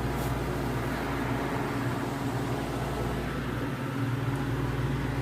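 Walk-in freezer's refrigeration equipment running with a steady electrical-motor hum and fan noise, the system back on and cooling slowly.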